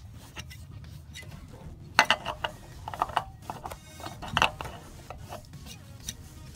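A new spin-on oil filter being turned by hand onto the engine's filter mount: the metal canister rubs and scrapes, with a few sharp clicks and knocks, the loudest about two seconds in and again a little past four seconds.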